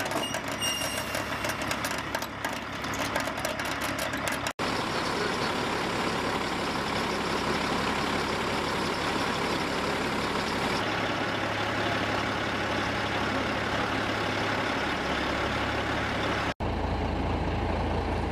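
Heavy military truck engine running steadily under its crane as it lifts wreckage, with a broad, even noise over it. The sound drops out abruptly twice, at about four and a half and sixteen and a half seconds in, and the low hum changes at each break.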